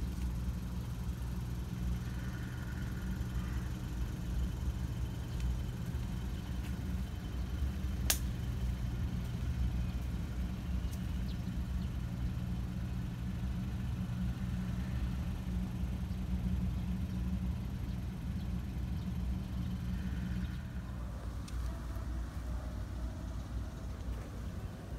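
Steady low hum of an idling engine, which drops off about twenty seconds in. A single sharp click about eight seconds in.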